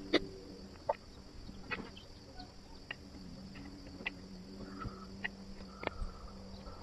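Faint, irregular clicks and light taps, about a dozen, over a low steady hum.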